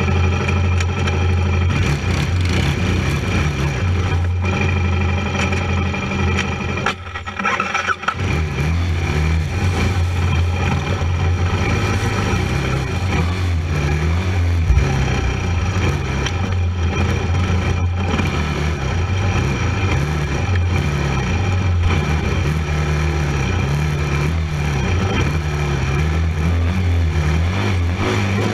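Racing quad's engine running hard off-road, its revs rising and falling with the throttle. About seven seconds in it drops away for a moment, then picks back up.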